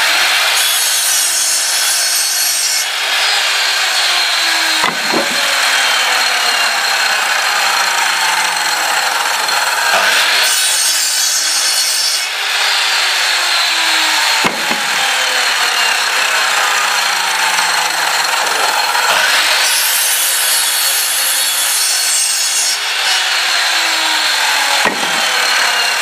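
Two-stroke chainsaw cutting through a wooden log. Its engine pitch sags under load and recovers in repeated cycles about every four to five seconds.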